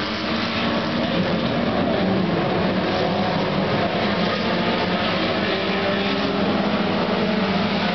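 A pack of junior sedan speedway cars running around a dirt oval, many small engines overlapping in a steady drone whose pitches drift up and down.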